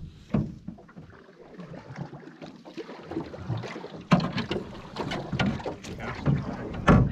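Canoe paddling from an aluminium canoe as it is turned: paddle strokes splashing in the water, with several sharp knocks against the hull, the loudest about four seconds in and near the end.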